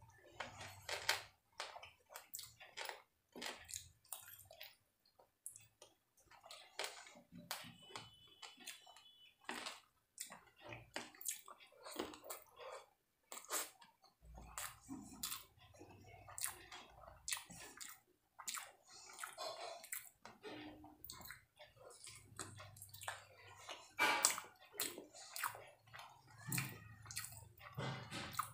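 A person eating fried rice and chilli chicken by hand: irregular wet chewing and mouth clicks, with the squish of fingers mixing rice on a steel plate.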